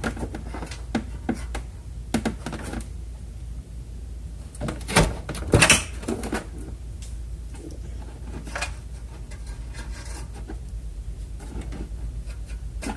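Plastic headlight assembly being wiggled and pulled loose from its mounting, giving scattered clicks, knocks and rattles. A louder clatter comes about five seconds in.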